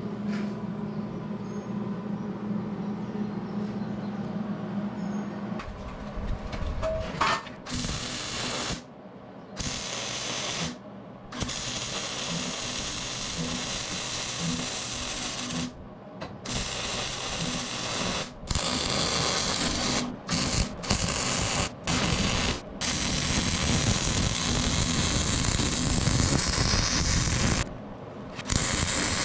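Wire-feed (MIG) welder arc crackling as it lays beads on steel plate, in runs of one to several seconds, each cut off sharply where the arc stops and restarts. A steady low hum comes before the welding starts, about six seconds in.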